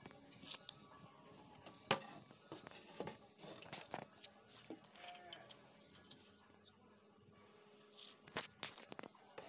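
Faint handling noise: scattered sharp clicks and taps with light rustling, from a tape measure and plywood boards being handled.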